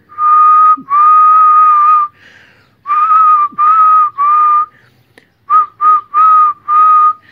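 A person whistling one high note over and over in short blasts, nine in all, the second held for about a second, to set off a sound-activated LED circuit's microphone.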